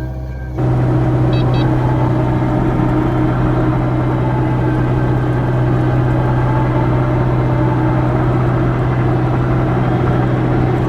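Kubota KX057-4 excavator's diesel engine running steadily at a constant speed, a loud, even drone that cuts in suddenly about half a second in.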